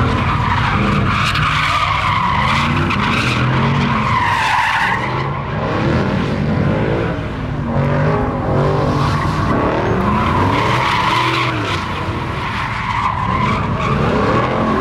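Tires squealing continuously as cars spin donuts and burnouts, with engines revving up and down underneath.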